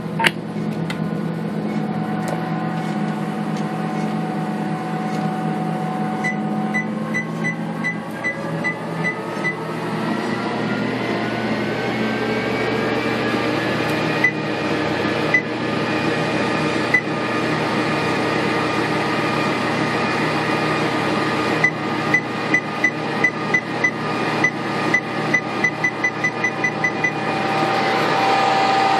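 ProForm Crosswalk 395 treadmill running: a steady motor hum, with a whine that rises in pitch from about eight seconds in as the belt speeds up. Two runs of quick console beeps, one per speed-button step, the second coming faster and faster.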